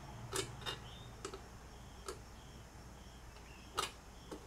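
Light, irregular clicks and taps, about six in all, from a screwdriver against the metal of a Corvette headlight vacuum actuator as a new seal is worked down into it. The two loudest come about half a second in and near the end.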